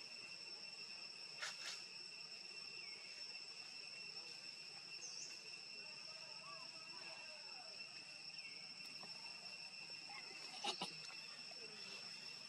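Insects droning steadily at a high pitch, with two brief clicks, the louder one near the end.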